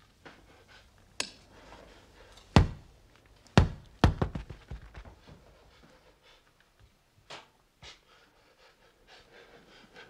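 A child's ball dropping and bouncing on the floor: a few single thuds, then a loud bounce followed by a run of quicker, fading bounces as it settles, and two light knocks near the end.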